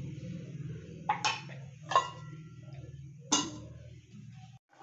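A ladle and a stainless-steel lid clinking against a cooking pot as it is covered: four sharp metallic clinks, some with a brief ring, over a steady low hum that cuts off near the end.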